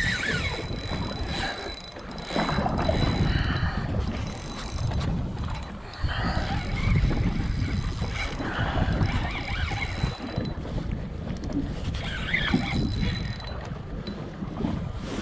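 Wind buffeting the microphone in gusts, with water slapping against a small boat's hull.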